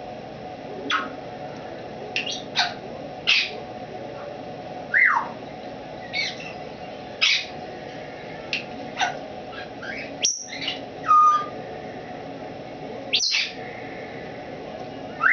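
Timneh African grey parrot giving short, scattered whistles and chirps, every second or so, many sweeping quickly down in pitch. The calls are the tentative vocalising of a bird still finding her voice.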